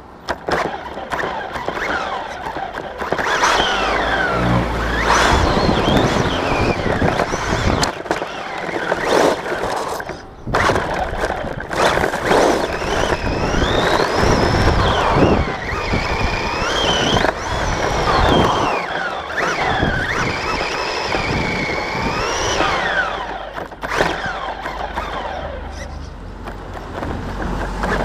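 A Team Associated RC10B4.2 electric RC buggy pulls away and drives hard, its motor and gearing whining up and down in pitch as it speeds up and slows, over tyre and chassis rattle on rough tarmac, heard from a camera on its body shell.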